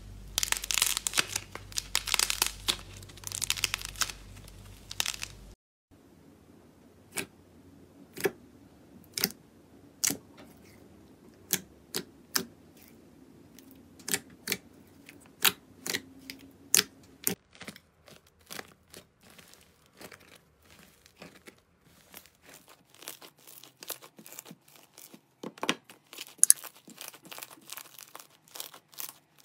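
Slime being squeezed and worked by hand: dense crackling for about the first five seconds, then after a sudden cut, sharp separate clicks and pops about one a second, coming thicker and faster near the end.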